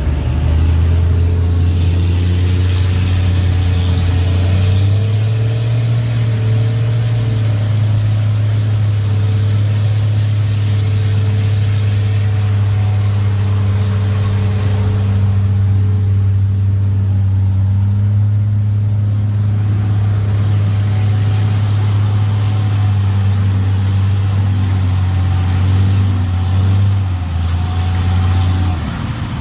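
Steady low drone of a vehicle winch pull: the Toyota FJ Cruiser's engine and front winch run under load, hauling a stuck Dodge pickup out of a mud pond on the cable. The pitch steps up about five seconds in and drops back just before the end.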